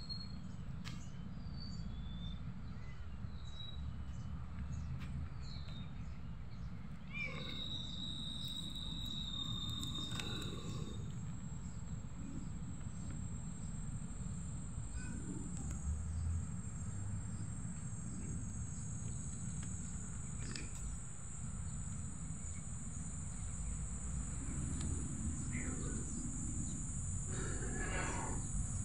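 Outdoor ambience: a steady low rumble, a few short bird chirps in the first few seconds, and a high, steady insect buzz that sets in about a third of the way through and carries on.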